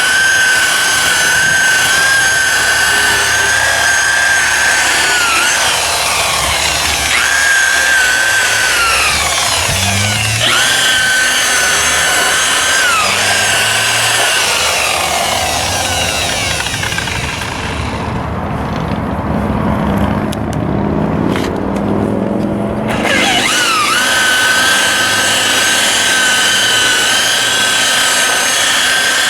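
Electric buffer running at speed, polishing a plastic headlight lens. Its high motor whine sags in pitch each time the pad is pressed onto the lens. The whine drops out for a few seconds past the middle, then winds back up to speed near the end.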